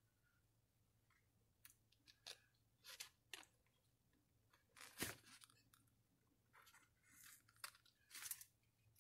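Faint rustling and crinkling of a paper strip of ultrasound printouts being handled, with a sharper crackle about five seconds in.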